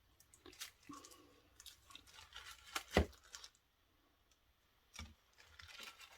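Handling noise from freshly demolded cured-resin phone grips and their silicone molds: scattered small clicks and rustles, with a sharp knock about three seconds in and another about five seconds in.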